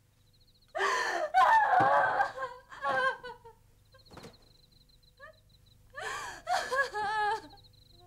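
A woman sobbing and crying out in two bouts, the second starting about six seconds in with a shaky, wavering voice.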